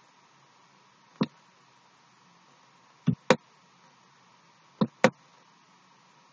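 Computer mouse clicking: one sharp click about a second in, then two quick pairs of clicks about two seconds apart, over a faint steady hiss.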